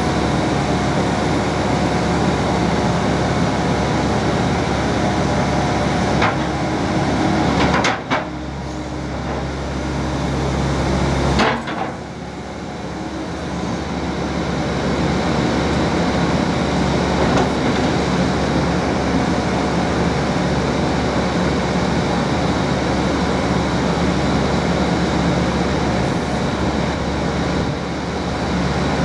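Caterpillar M315 wheeled excavator's diesel engine running steadily as the hydraulics shift the boom and bucket. Two sharp knocks come about 8 seconds in and again about three and a half seconds later, and the engine's sound changes between them.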